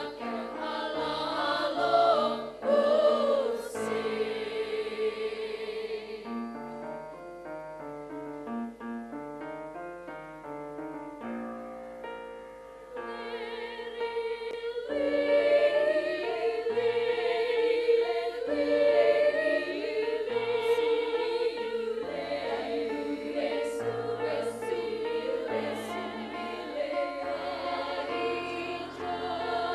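Girls' choir singing in several parts, with long held chords. It drops to a softer passage about six seconds in and swells louder again around thirteen seconds.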